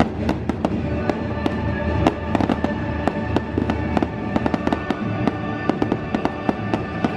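Fireworks going off in a rapid series of sharp pops and crackles, several a second, over loud show music.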